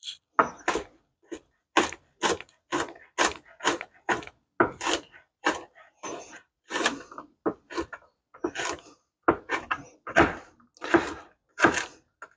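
Knife chopping garlic cloves on a cutting board: a long run of sharp knocks, about two to three a second and slightly uneven, as the garlic is rough-cut for mincing.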